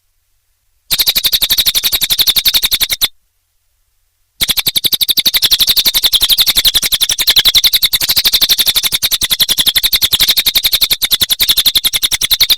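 Cililin bird in full song: a rapid, evenly spaced chattering trill of about a dozen sharp notes a second, high-pitched. A burst starts about a second in and lasts about two seconds; after a short break the trill resumes and carries on.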